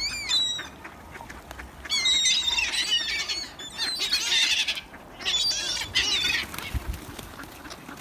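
A flock of gulls squawking, in four bursts of many overlapping high-pitched calls.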